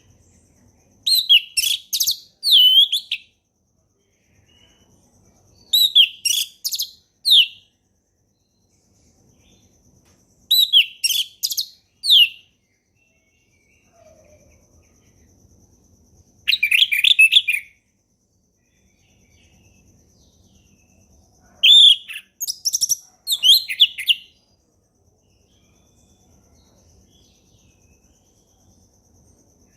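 Orange-headed thrush singing its clear, full 'ngeplong' song in five separate phrases of quick, varied high whistles and warbles, each a second or two long, with pauses of a few seconds between them. A faint steady high tone sounds in the background during the gaps.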